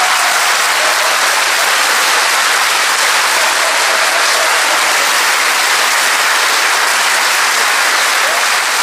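Audience applauding steadily in reaction to a joke's punchline.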